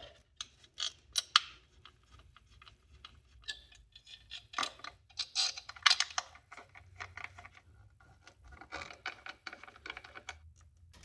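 Quick runs of ratchet clicks with light clatter of metal tools and parts as the screws of a new ignition coil pack are driven in.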